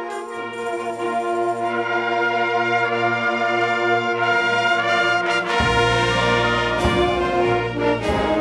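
Concert band playing held brass chords with trombones and trumpets to the fore. A low bass note comes in under them early on, and about five and a half seconds in the band swells fuller and heavier, with a couple of sharp percussion hits.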